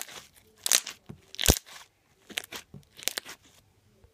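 Clear slime being squeezed and pressed in the hands, giving about five short, sharp squishing crackles; the loudest comes about a second and a half in.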